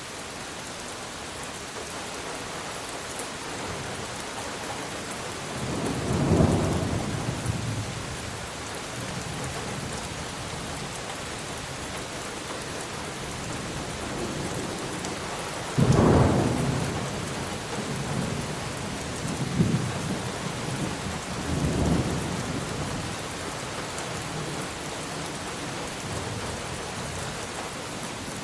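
Steady rain falling, with thunder: a rumble about six seconds in, then a sudden loud clap about sixteen seconds in that rolls on in several rumbles over the next few seconds.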